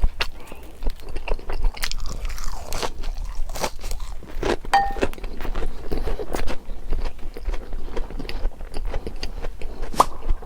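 Close-miked mukbang eating: chewing and biting with dense, irregular crisp crunches, as of a fried pork cutlet's crust and chewy noodles.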